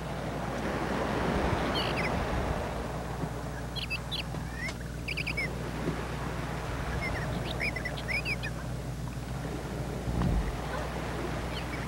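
Birds chirping: small clusters of quick, high calls, repeated every second or two over a steady rushing hiss.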